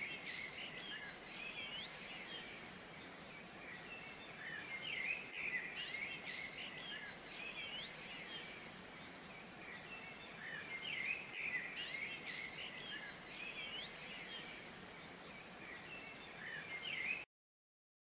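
A chorus of many small birds chirping and twittering over a faint steady hiss, swelling and easing in waves; it cuts off abruptly near the end.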